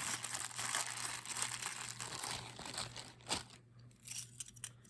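Plastic bag crinkling as small jewelry pieces are handled, dense for about the first three and a half seconds, then only a few light clicks.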